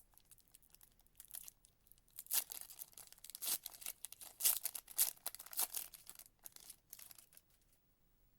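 Wrapper of a 2024 Panini Prizm football card pack being torn open and crinkled: a run of crackling rips and rustles for several seconds, dying away near the end.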